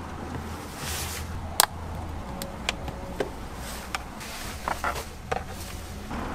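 Scattered sharp plastic clicks and taps as a white 3D-printed PETG clip is worked out of a car's plastic glove box and handled. The loudest click comes about a second and a half in, and a quick few come together near five seconds. A low steady hum runs underneath.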